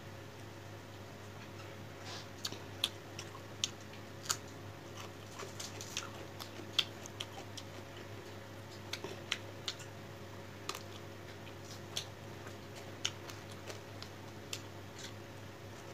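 Close-up eating sounds: irregular wet mouth clicks and smacks while chewing rice and fish curry, with fingers mixing rice on the plate. A faint steady hum runs underneath.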